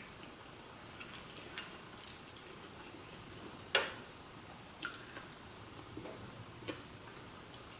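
Close-up mukbang eating sounds: a chicken wing eaten by hand, with quiet wet chewing and mouth smacks broken by scattered sharp clicks, the loudest a little before halfway through.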